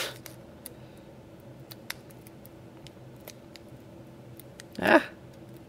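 Faint scattered crackles and ticks of a foil Pokémon booster pack wrapper being gripped and pulled at by hand, the pack stubbornly sealed and not tearing. About five seconds in, a short loud vocal sound of effort.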